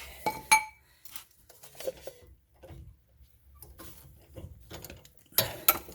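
Hand tools clinking and clanking against metal at the steering rack while the inner tie rod is worked loose. Sharp separate clinks, two loud ones about half a second in and a quick cluster of loud ones near the end, with light rattling between.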